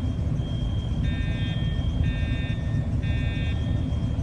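Integrity fire alarm horn strobes sounding the temporal-three evacuation pattern: three short blasts about a second apart, then a pause. A steady high tone runs under it, and a low rumble is there throughout.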